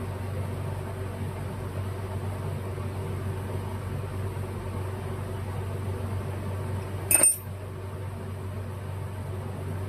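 Steady low machine hum, with one short, sharp clink about seven seconds in.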